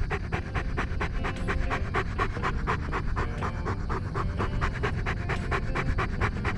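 Chocolate Labrador Retriever panting rapidly, about five quick breaths a second in an even rhythm, over a steady low rumble.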